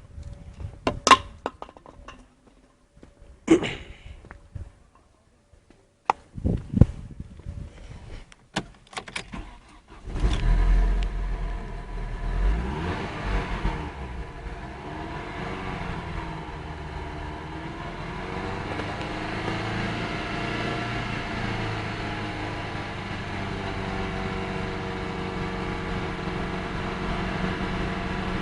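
A few sharp knocks and clicks, then about ten seconds in a car engine is started with a loud low burst and settles into a steady idle.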